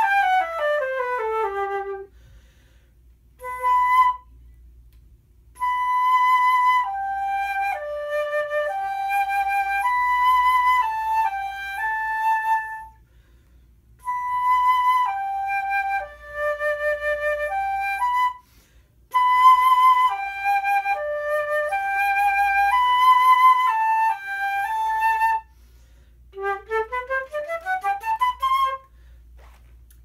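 Concert flute with a Haynes gold headjoint with a platinum riser (N cut), played solo. It opens with a falling run and a short single note, then plays the same melodic phrase three times with short pauses, and near the end a fast, crisply tongued rising run. The tone is full, dark and rich, with little breathiness.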